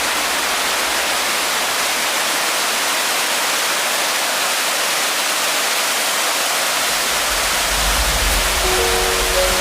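Mountain valley stream rushing, a steady dense wash of running water.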